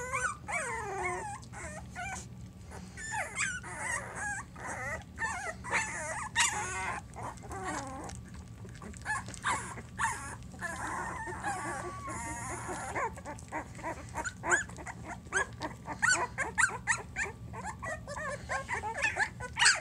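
A litter of newborn Small Münsterländer puppies, 12 days old, whimpering and squealing in many high, wavering squeaks that overlap, with quick clicking noises as they nuzzle and mouth at a hand.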